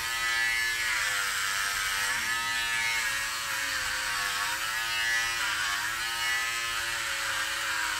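Electric hair clippers buzzing steadily as they shave a head close to the scalp, the pitch wavering slightly.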